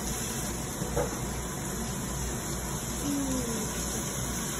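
Steady hiss of chicken frying in oil in a pan on the stove, with a faint knock about a second in.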